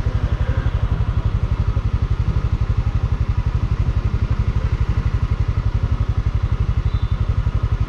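Motorcycle engine idling, a steady, rapid, even low pulsing.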